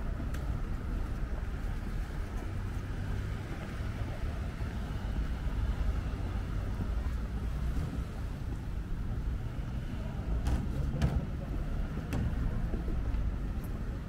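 Street ambience: a steady low rumble of road traffic, with a few sharp clicks near the end.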